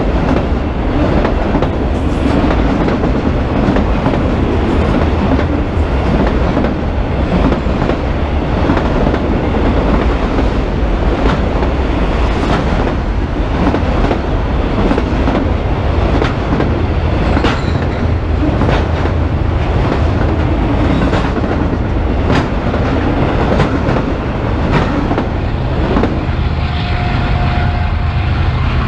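Freight train of autorack cars passing close by: a loud, steady rumble of steel wheels on rail with irregular clicking from the wheels. The clicking fades near the end as the last car goes by.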